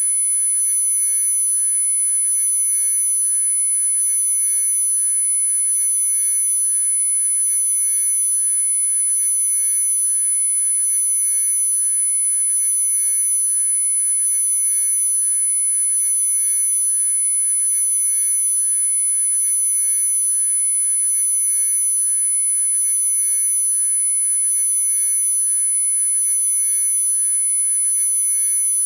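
Electronically generated pure sine tones: several tones held together without any change, the loudest a high-pitched whine with softer, lower tones beneath it.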